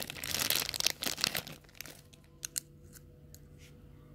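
A small toy's packaging being crinkled and torn open by hand for about two seconds. A few light clicks follow.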